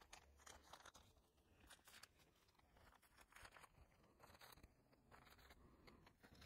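Near silence with faint, scattered ticks and light rustles of photocards being handled and put away.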